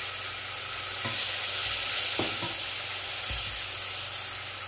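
Garlic-ginger paste frying in hot oil and chilli in a steel pot: a steady, dense sizzle, stirred with a black plastic slotted spatula that gives a few light knocks against the pot.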